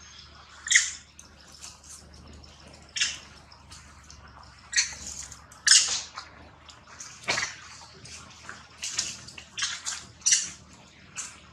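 Long-tailed macaques giving short, sharp, high-pitched alarm calls at a python, about a dozen scattered calls of varying loudness, with a faint steady low hum underneath.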